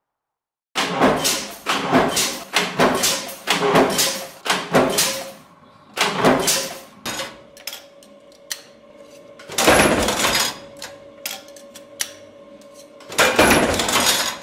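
Power presses working steel knife parts in a knife factory. Starting about a second in comes a run of sharp metal-on-metal clanks about two a second, then single clanks over a steady machine hum, with two longer, harsh bursts, one in the middle and one at the end.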